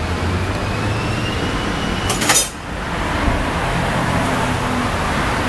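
Steady street traffic noise, with a brief sharp clatter a little over two seconds in.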